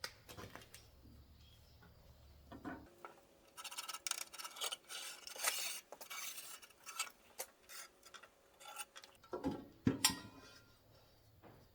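A marking tool scratching in short strokes over painted steel plate, with light metal clinks and a sharp knock near the end. A low hum cuts off about three seconds in.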